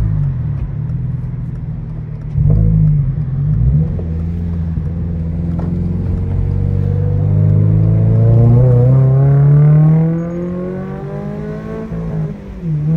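2022 Toyota GR86's flat-four engine through an aftermarket cat-back exhaust. The revs fall at the start and there are two short loud rev blips a few seconds in. Then comes a long pull with the pitch slowly climbing, loudest just before it drops off about ten seconds in.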